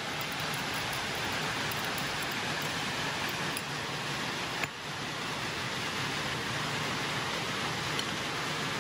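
Steady hiss of heavy rain, with a brief tick about halfway through.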